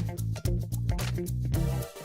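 Background music with a steady beat: bass line, guitar and drums.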